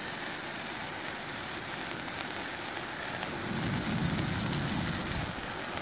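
Handheld firework fountain burning with a steady hiss of spraying sparks. A louder low rumble swells in about three and a half seconds in and fades near the end.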